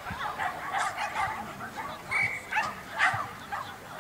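A dog barking repeatedly in short, sharp barks and yips, with a brief steady whistle-like tone about halfway through.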